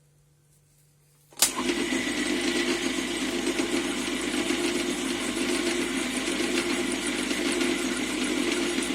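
Near silence, then about a second and a half in a lathe starts up abruptly with a sharp click and runs on steadily, its motor and gearing giving a steady hum with a higher whine above it.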